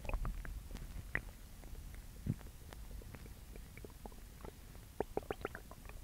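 A girl's upset stomach growling and gurgling: a low rumble with scattered small pops and squelches, a longer gurgle a little past two seconds in, and a quick run of pops about five seconds in.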